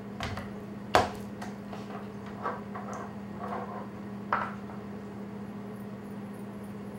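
Kitchen handling sounds: a canister and raw meat being handled on a wooden cutting board and table, giving about six light knocks and clatters. The loudest comes about a second in, and all of it sits over a steady low hum.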